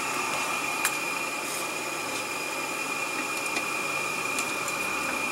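Blower fan of an Incinolet CF electric incinerating toilet running steadily with a high, even whine, with a few faint ticks.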